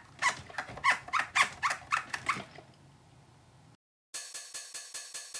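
A run of short squeaks, each falling in pitch, about three a second, dying away about two and a half seconds in. After a brief silence, electronic music with a steady beat starts near the end.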